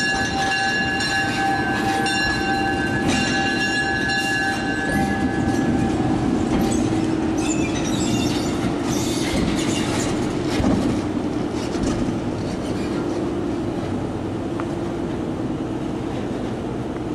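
EMD SD38 diesel locomotive drifting slowly out of the engine house, unpowered before its engine is started. Its steel wheels squeal in a high steady tone for about the first six seconds, then give way to the rumble and clatter of wheels rolling over the rails.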